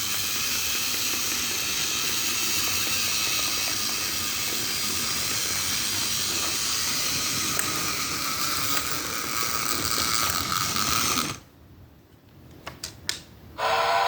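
Plarail D51 toy steam locomotive running on a Mr. Motorman controller: its small motor and gearbox clattering steadily together with the sound unit, which the controller drives at its highest setting, until everything is switched off about eleven seconds in. A few clicks follow, then a short pitched tone near the end.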